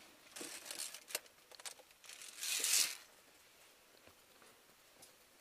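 Scraping and rustling as a climber's clothing, pack and gear rub against the rock in a narrow chimney, with a few sharp clicks; the loudest is a short rush of scraping about two and a half seconds in.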